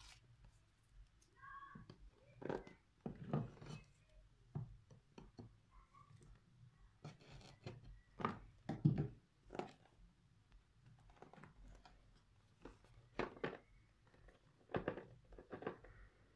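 Hands handling and opening a cardboard smartphone box: irregular short scrapes, taps and rustles as the seal stickers are broken and the sleeve slides off.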